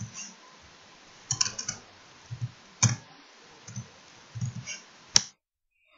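Computer keyboard typing: scattered single keystrokes and short quick runs of key clicks, each with a low thud. There is one sharper click about five seconds in, then the sound drops out completely.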